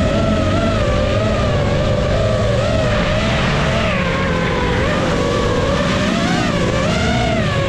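FPV drone's motors and propellers whining steadily, the pitch wavering up and down with the throttle, over a low engine rumble.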